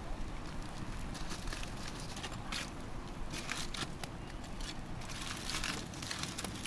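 Cooking over an open wood fire: scattered crackles and a few sharp clicks, heaviest around the middle and near the end, over a steady low rumble.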